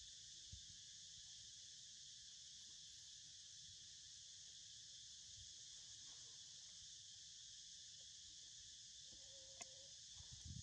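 Faint, steady chorus of insects: an even high-pitched drone. Near the end comes a brief faint tone and a single click.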